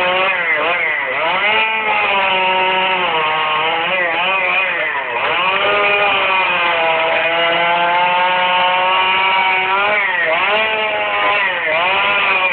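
Chainsaw running at high revs while carving wood, its pitch dipping and recovering again and again as the chain bites in under load. There is a longer even stretch near the middle.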